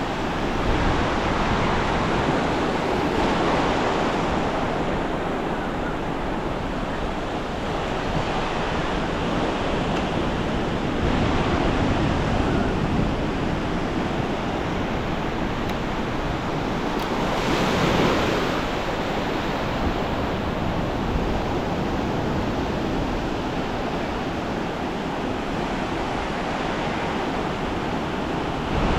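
Ocean surf breaking and washing on a beach, a steady rushing noise with waves swelling now and then, the strongest near the two-thirds mark. Wind buffets the microphone.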